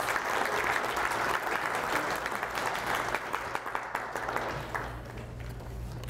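Audience applauding, a dense patter of many hands clapping that dies down about five seconds in.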